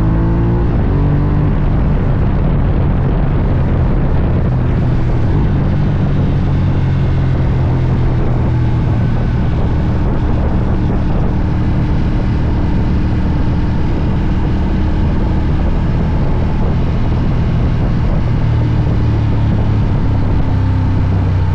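Ducati Diavel's Testastretta 90-degree V-twin engine on the move: revving up at the start, then running at a fairly steady engine speed.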